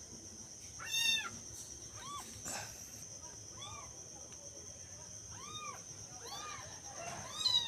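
Kitten meowing repeatedly, about six short high meows, the loudest about a second in and another near the end, over a steady high-pitched background drone.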